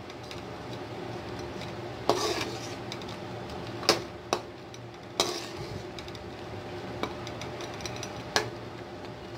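Spoon stirring thick raw-mango chutney in a pan, with about six sharp knocks of the spoon against the pan over a steady hiss from the simmering pot.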